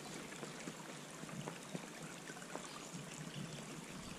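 A small brook trickling and babbling steadily and softly.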